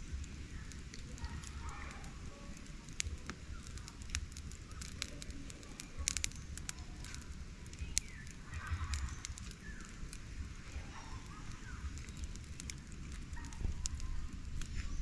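Small wood campfire crackling, with irregular sharp pops and snaps.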